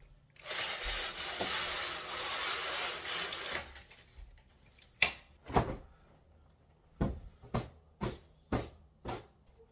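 A rushing, rustling noise for about three seconds, then about seven short soft thumps, unevenly spaced, as pillows and bedding are patted and plumped on a bed.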